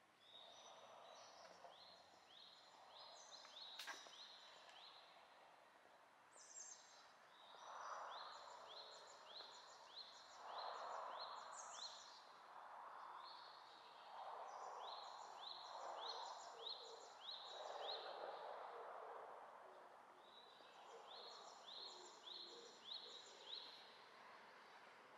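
A songbird singing four phrases of short, high, clear notes repeated about twice a second, with pauses between phrases, over faint swells of distant traffic. A single sharp click sounds about four seconds in.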